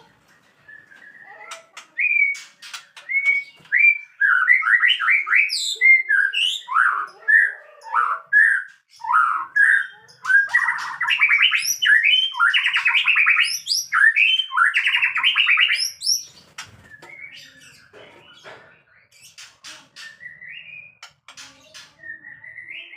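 White-rumped shama singing a run of varied whistled phrases and sliding notes, with louder, harsher scratchy phrases from about ten to sixteen seconds in, then only soft chirps and clicks near the end; the song of a shama pair at mating.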